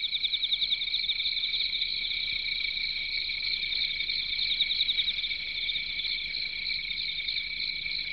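Crickets chirping: a steady high trill with rapid pulsing chirps layered over it.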